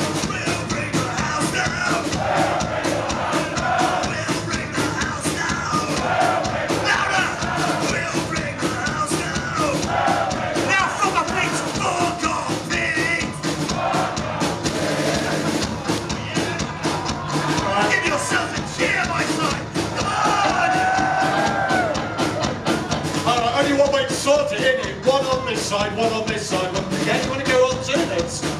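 Live thrash metal band playing a song, with shouted vocals over electric guitar and drums.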